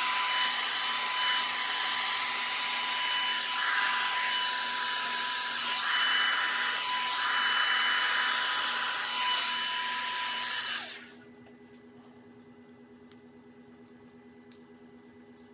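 Revlon One-Step 1100-watt hot air brush dryer running, a steady rush of air with a constant whine. It is switched off about eleven seconds in and the sound dies away quickly.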